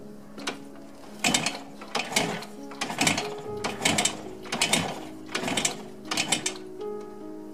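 Kawasaki 500SS Mach III's kickstarter kicked through about seven times, roughly one stroke every 0.8 s, turning the two-stroke triple over without it firing to draw fuel mixture into the crankcases after a year unused. Soft background music with held notes runs underneath.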